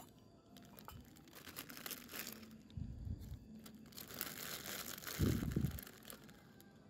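Plastic instant noodle packet crinkling and rustling in the hands as it is torn and emptied over the pot. There are two dull low thumps, about 3 seconds in and about 5 seconds in, the second one the loudest.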